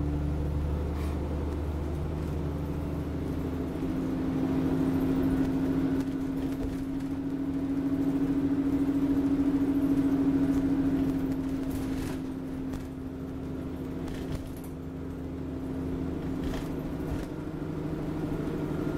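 Alexander Dennis Enviro400 double-decker bus on a Trident chassis driving along, heard from the upper deck: a steady engine and drivetrain drone with road rumble. It swells in the middle and eases off again, with a few light rattles from the body.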